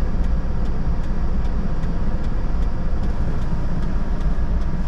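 Mitsubishi Fuso Canter truck's diesel engine idling steadily, heard from inside the cab, with a faint regular ticking about three times a second.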